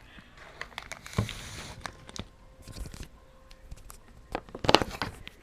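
Wrapping paper tearing and crinkling as a package is unwrapped by hand, with scattered small handling clicks and a louder burst of rustling near the end.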